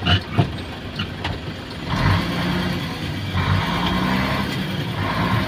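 Isuzu Giga truck's 6WA1 diesel engine heard from inside the cab, pulling on the road. A few clicks come in the first second, then about two seconds in the engine gets louder and its note shifts in pitch as it pulls.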